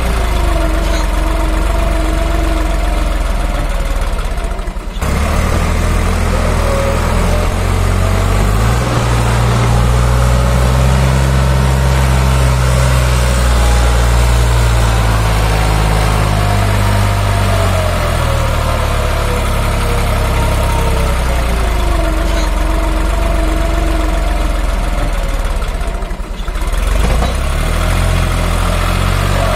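New Holland 3600-2 tractor's diesel engine working hard under load as it drags a loaded soil trolley up a steep bank, its revs rising and falling. The sound dips briefly twice, about five seconds in and near the end.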